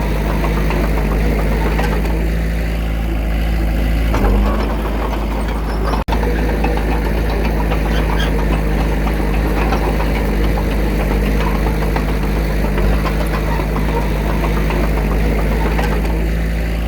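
Diesel engine of earthmoving machinery running steadily with a clattering note. The sound drops out for an instant about six seconds in.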